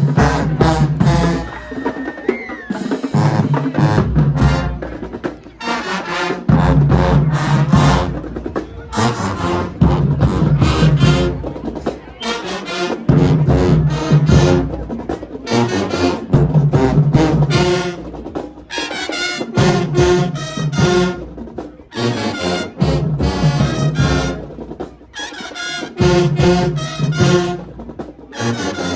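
High school marching band playing: brass horns over a drumline, with heavy low hits repeating every second or two.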